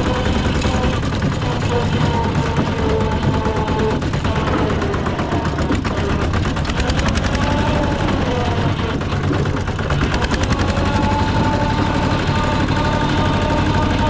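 Rice combine harvester running steadily at work: a low engine drone under a fast, dense clatter from the machinery, with a wavering whine above it.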